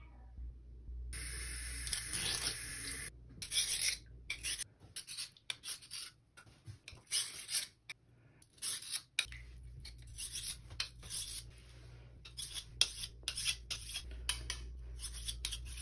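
A wet sharpening stone is rubbed in quick back-and-forth strokes along the steel blade of a dull kitchen knife, making a run of short scraping rasps with brief pauses between them.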